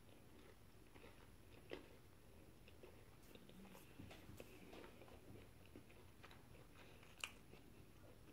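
Faint chewing of a bite of pastry pie, a few soft mouth clicks, with one sharper click about seven seconds in.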